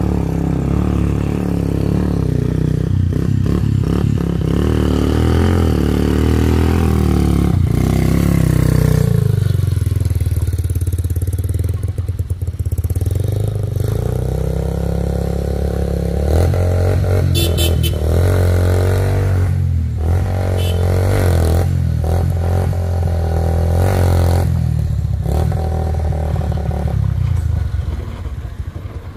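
Vehicle engines running loud and close on a rough hill climb, their pitch rising and falling as they labour up the slope, with a clear drop in engine pitch about ten seconds in.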